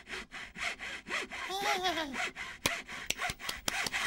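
Handsaw cutting through a wooden log in quick, regular strokes, about four to five a second, with a few sharp clicks in the second half.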